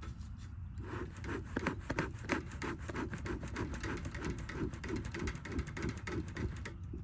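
A bee smoker's bellows pumped rapidly, about three puffs of air a second starting about a second in. Each squeeze blows air through the smouldering fuel to fan the embers and get the smoke going.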